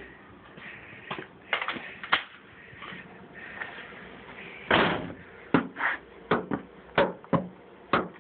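A series of short knocks and thumps: three in the first couple of seconds, a longer, louder thump about five seconds in, then quick knocks roughly every half second.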